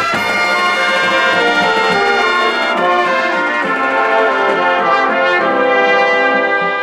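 A high school marching band's brass section playing held chords that change every second or so.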